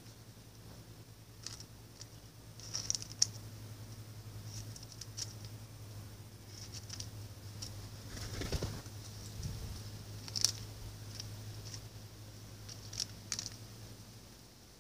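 Western jackdaw pecking at seed and peanuts on paving stones: scattered sharp beak taps, with the loudest near 3 seconds and again about 10 seconds in.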